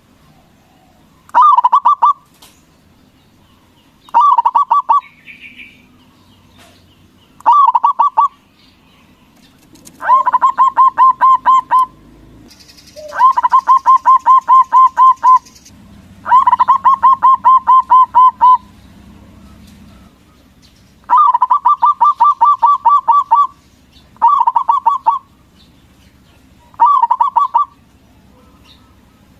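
Zebra dove (perkutut) cooing loudly: nine phrases of rapid, pulsing coos, some short and some drawn out to about two seconds, with pauses of a second or more between them.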